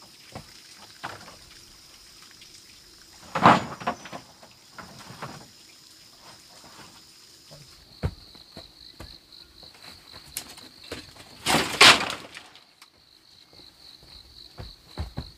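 Insects chirring steadily in one high, even tone that turns into a fast pulsing about halfway through. Scattered clicks and two louder half-second noises come over it, one a few seconds in and one about three-quarters of the way through.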